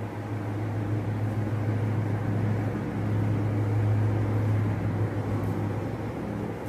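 Steady machine hum with an airy rushing noise over a low drone, growing a little louder in the middle.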